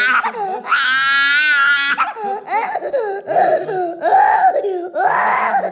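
A young child crying loudly in long, drawn-out wails, broken by short gasps, with rougher, sobbing cries in the middle.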